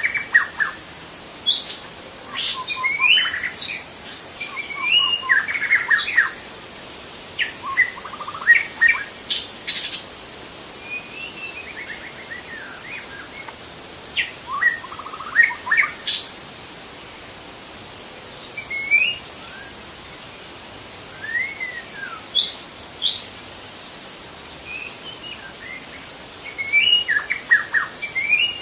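White-rumped shama singing in short, varied whistled phrases separated by pauses, over a steady high-pitched insect drone.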